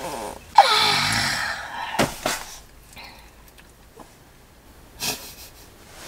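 A long, breathy yawn with a falling pitch, about half a second in, as a person stretches on waking. It is followed by a few brief knocks of movement in the bedding.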